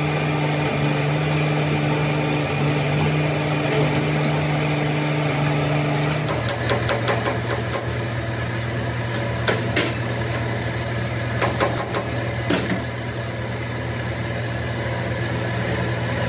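A workshop machine running steadily with a low hum that drops in pitch about six seconds in, after which come scattered sharp metallic taps and clicks.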